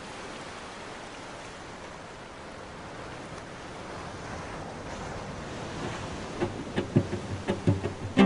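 Steady wash of ocean surf. About six seconds in, plucked string music starts and soon rises above it.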